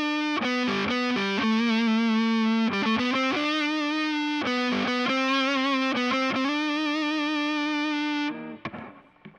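Overdriven electric guitar playing a melodic single-note line of held notes through a Seymour Duncan Antiquity bridge humbucker fitted in the neck position. The notes stop a little after eight seconds, leaving a few faint string and handling scrapes.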